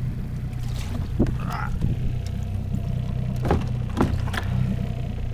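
Red plastic bucket scooped through the lake surface and lifted aboard with water sloshing, then a few sharp knocks as it is set down against the boat. A steady low hum runs underneath.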